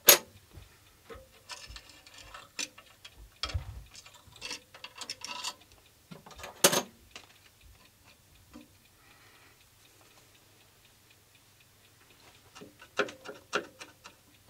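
Broken pieces of a cracked glass dial window being handled and lifted out of a metal instrument front: scattered light clicks, taps and scrapes, with sharp clicks at the start and about six and a half seconds in, and a few more near the end.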